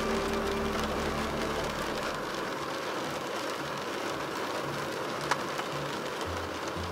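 Rain pattering on a car's windscreen and roof, heard from inside the car: a steady hiss of rain dotted with small drop ticks, with one sharper tap about five seconds in.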